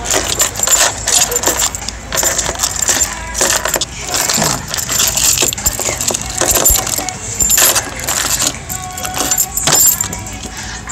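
Car keys jangling and small metal clinks and clicks, irregular and close by, as a hand works the car's fuel filler.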